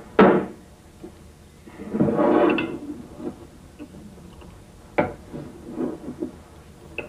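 Glass bottles being handled at a table: a sharp loud knock or cap opening just after the start, a longer noisy stretch about two seconds in, then a few light knocks of glass near the end.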